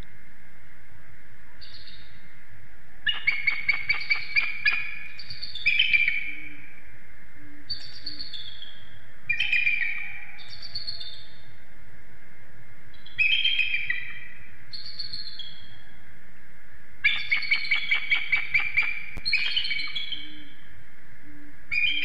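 Bald eagles calling in repeated bouts: fast runs of staccato chattering notes, each followed by slurred, squealing notes that fall in pitch. The calls come over a steady background hiss.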